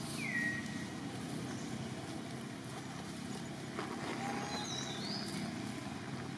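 Outdoor ambience: a steady low rumble, with one short falling squeak just after the start and a few brief high chirps about four to five seconds in.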